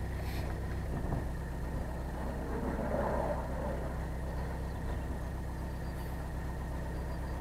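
Narrowboat engine running steadily at slow cruising speed, a low, even hum.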